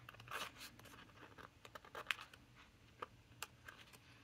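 Faint rustling of a stack of ring-bound paper cards being handled and flipped, with a few light clicks scattered through.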